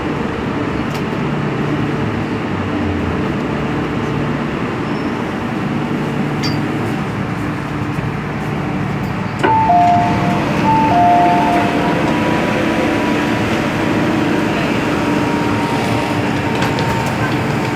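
MTR M-Train passenger car's steady running hum while standing at a platform. About halfway through there is a sharp click, then a chime of alternating high and low tones, played twice.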